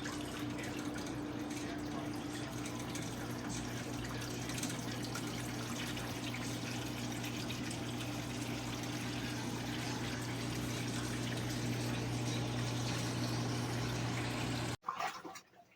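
Water running and splashing inside a portable washing machine, over a steady low hum. It cuts off abruptly about a second before the end.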